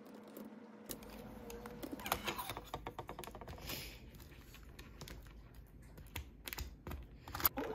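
Light, irregular clicks of typing on a computer keyboard, then a plastic spoon scraping and tapping in a plastic cup of granola and yogurt, with a few sharper clicks near the end.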